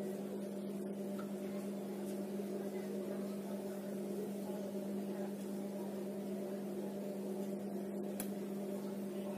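Steady low electrical hum at one unchanging pitch with a few fainter overtones above it, with a couple of faint ticks.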